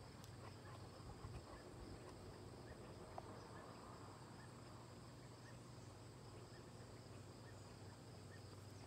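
Near silence: faint outdoor ambience with a steady high-pitched insect drone and a few faint chirps.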